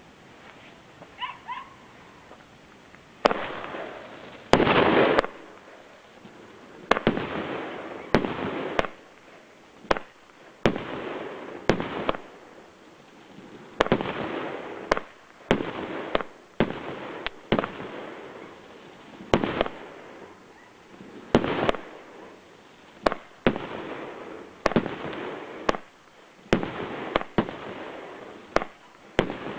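A 25-shot fireworks cake ('Spring Comets') firing its shots one after another, roughly every one to two seconds. Each shot is a sharp report followed by a fading hiss of about a second.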